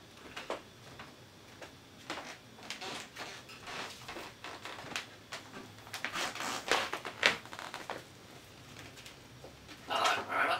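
African grey parrot making quiet, scattered clicking sounds, with a brief louder call near the end.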